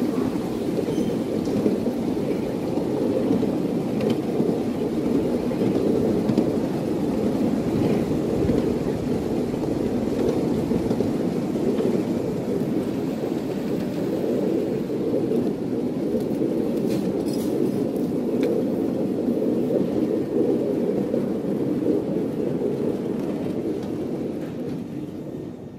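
Steady rumble of a ride-on miniature railway train's wheels running on the track, heard from aboard, mixed with wind on the microphone; it fades away near the end.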